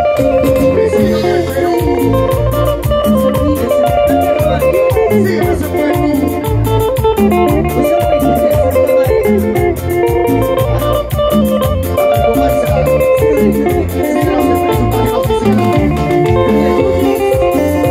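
Live band music played loud through a PA system: an instrumental passage with a guitar lead over a steady, even beat.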